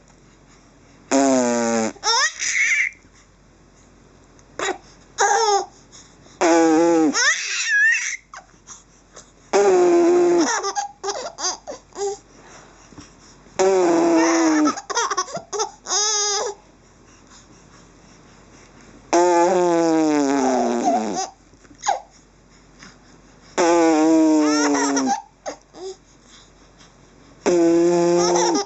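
A baby laughing in repeated bouts, each a run of high squeals falling in pitch, a new bout every few seconds, in response to raspberries blown at him.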